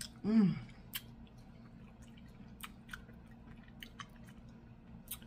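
A person eating with the mouth close to the microphone: a short hummed "mmm" about half a second in, then chewing with scattered wet mouth clicks and lip smacks.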